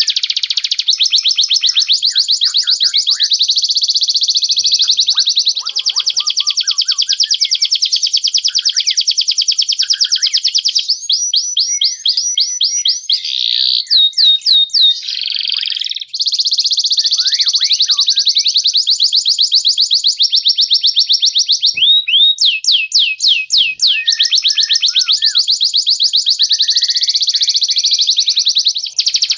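Songbird singing canary-style song: long, loud, rapid trills, broken twice by runs of quick swooping notes, about eleven seconds in and again past twenty seconds.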